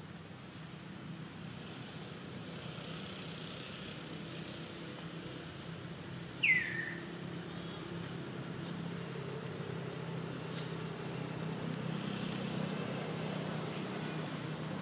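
Steady low hum that grows slowly louder. About six and a half seconds in, one short high squeak falls in pitch, and a few faint ticks follow.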